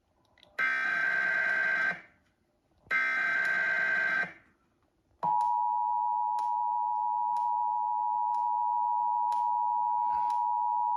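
Emergency Alert System test signal: two bursts of the digital header data tones, each about a second and a half long and separated by short gaps. Then, about five seconds in, the steady two-tone EAS attention signal starts abruptly and holds, announcing the alert message.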